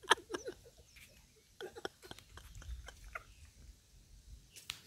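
Faint, stifled laughter in a few short breathy bursts.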